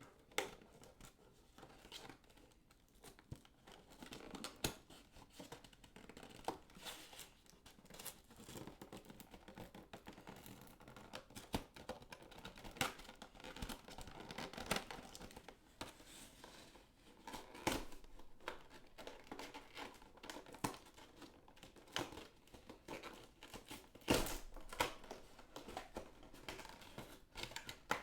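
Toy packaging being opened by hand: cardboard and plastic tearing and crinkling in irregular bursts of crackles, with sharper snaps now and then.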